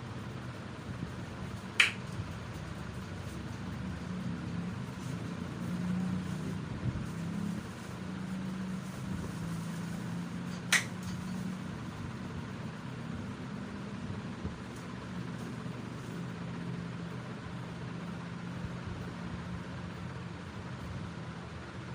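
Two sharp clicks from the massage, about nine seconds apart, over a steady low hum.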